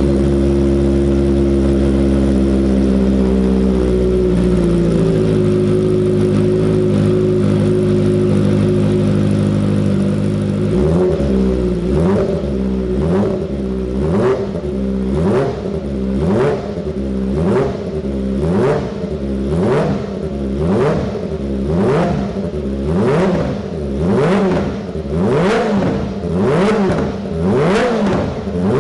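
Kawasaki Ninja ZX-25R's 250 cc inline-four engine idling fast just after starting, then settling to a lower idle about five seconds in. From about eleven seconds in the throttle is blipped again and again, roughly once a second, each rev rising and falling quickly.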